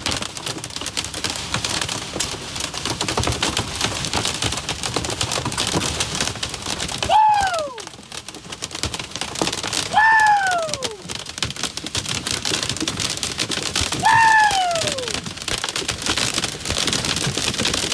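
Heavy rain drumming on a moving vehicle's roof and windshield as a dense, steady patter of fine ticks. Three short falling squeals cut through it, about 7, 10 and 14 seconds in.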